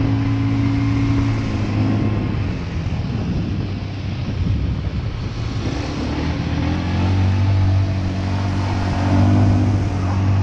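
ATV (quad bike) engine running under throttle while riding, over a steady rushing noise. Its note fades somewhat about two seconds in and picks up strongly again around seven seconds.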